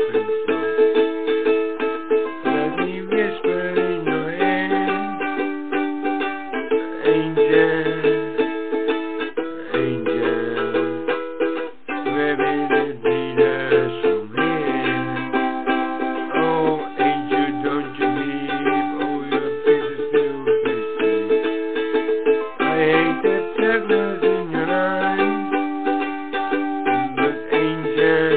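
Background music: an instrumental tune of quick plucked notes over a bass line that moves in steps.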